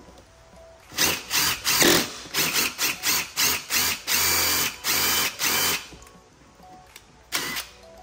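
Impact driver with a drill bit, run in a string of short trigger bursts and then two longer runs, with one more brief burst near the end, drilling out a plastic rivet that holds a car door handle.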